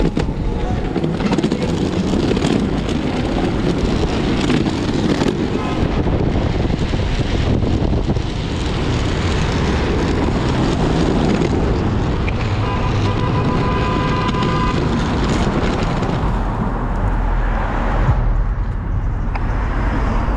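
Hub-motor electric skateboard rolling at speed over a city street: a steady rumble of wheels on the road, with traffic going by. A brief high steady tone sounds about two-thirds of the way through.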